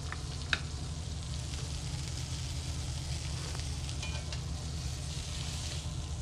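Filet mignons searing in a hot stainless steel skillet: a steady sizzle of frying, with a light click about half a second in and a brief metallic clink of tongs against the pan around four seconds.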